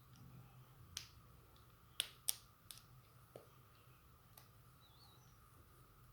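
A few faint, sharp clicks and taps of small hand-held objects being handled, the loudest a pair close together about two seconds in, over a low steady hum.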